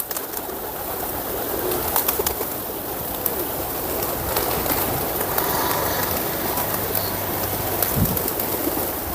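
A large flock of birds gathered to feed, making a dense, steady din with cooing mixed through it.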